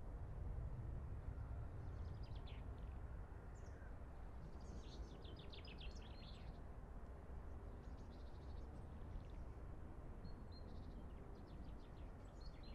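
Small songbirds chirping and trilling in several short, quick phrases of high notes over a steady low outdoor rumble.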